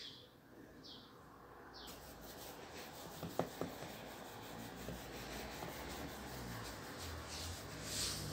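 Soft rubbing of hands on soft cookie dough as knotted dough pieces are pressed onto a wooden board and a rope of dough is rolled, with a couple of faint taps about three and a half seconds in.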